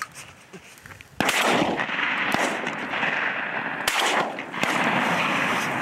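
Two loud shotgun shots at a flushed pheasant, about two and a half seconds apart, each trailing off in a long rolling echo.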